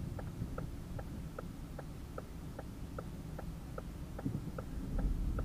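Car's turn-signal indicator ticking steadily, about two to three clicks a second, over a low engine rumble inside the cabin. The rumble grows a little louder near the end.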